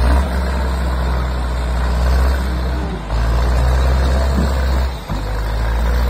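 Wheeled forestry skidder's diesel engine running steady and loud while it drags logs through mud, dipping briefly twice, about three and five seconds in.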